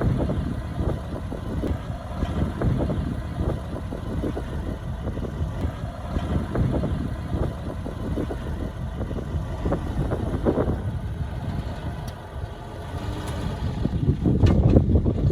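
Heavy diesel earthmoving machinery running, a low engine drone that grows louder near the end.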